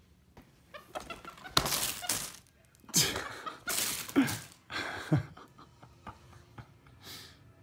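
Pet monkey handling and tossing a gift box and its packaging: a handful of loud crinkling and knocking noises through the middle, with two short falling calls about four and five seconds in.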